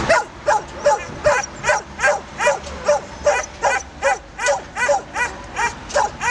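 A dog barking over and over in short, high yelps, about two or three a second in a steady rhythm.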